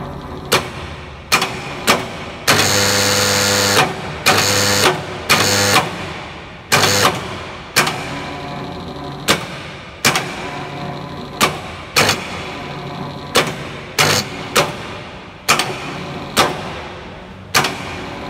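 Contactors in an electric hoist's control cabinet clacking as they switch in and out, sharp clicks about once a second at an uneven pace. Between about two and seven seconds in there are several loud buzzing stretches of a second or so.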